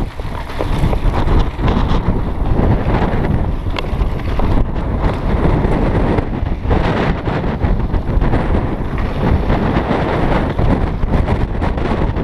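Wind buffeting the microphone of a camera riding on a mountain bike at speed, with the tyres rolling over a dirt trail and the bike rattling over bumps in a run of short knocks.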